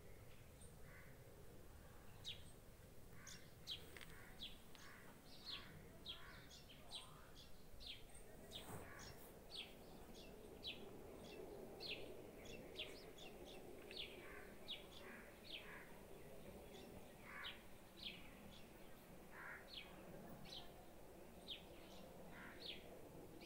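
Faint bird chirping: short, falling notes repeated irregularly, about one or two a second, over soft outdoor background noise.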